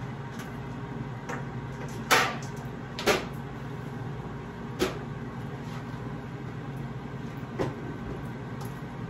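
Air fryer running with a steady fan hum, broken by four sharp clatters of kitchenware being handled at the counter, the loudest two about two and three seconds in.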